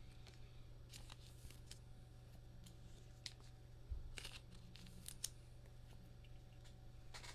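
Faint rustles and light clicks of trading cards being handled and slid off a stack, a few scattered strokes with one slightly louder about four seconds in, over a low steady hum.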